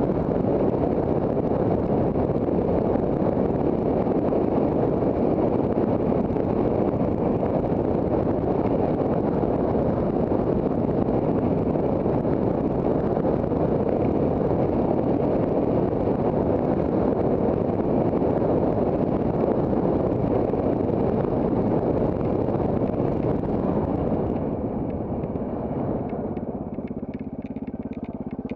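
Off-road trail motorcycle engine running steadily as the bike rides along. About 24 seconds in it eases off and gets quieter, and a steadier, lower engine note shows through near the end.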